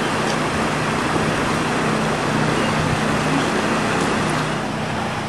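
Floodwater running across a paved street, a steady rushing hiss, with a steady low hum underneath.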